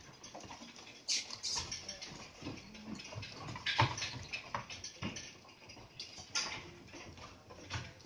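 Goats' hooves clattering and knocking irregularly on a raised slatted pen floor as a crowded herd shifts about.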